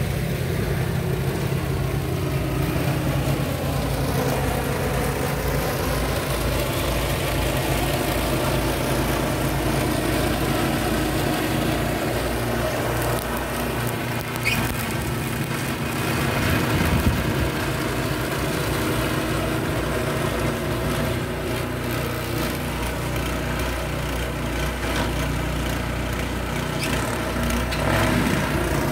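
Walk-behind snowblower's small engine running steadily as it clears snow.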